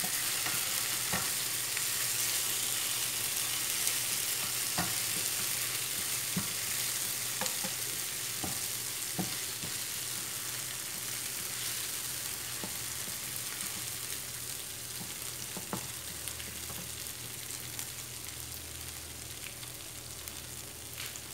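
Tomato paste, garlic and oregano frying in oil in a nonstick pan, a steady sizzle that slowly gets quieter. A plastic slotted spoon stirs through it, with scattered clicks and scrapes against the pan.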